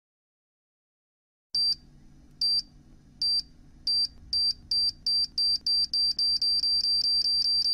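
Electronic bomb-timer sound effect: a high-pitched beep that starts about a second and a half in and repeats faster and faster, from under one a second to a rapid, nearly continuous string, over a faint low hum, counting down to a detonation.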